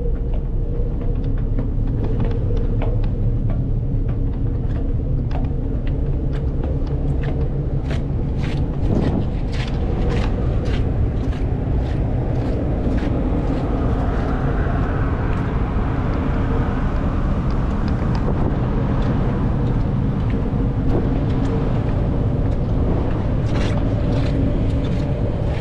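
Steady low engine rumble with a constant hum, and a run of short clicks and knocks a few seconds in.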